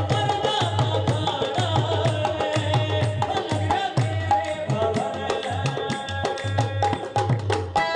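Loud music with a steady, driving drum beat and tabla-like hand percussion over melodic instruments, played through a sound system.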